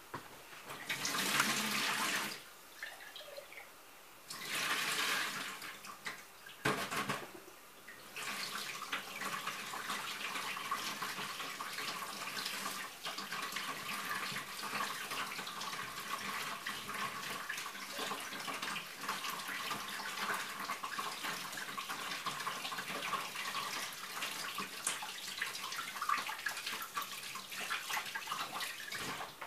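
Water splashing in a few short pours, then a kitchen tap running steadily into a sink as fermented tomato seeds are rinsed in a sieve under it.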